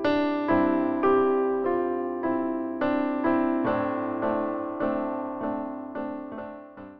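Gentle background music, with notes struck about twice a second, each fading away.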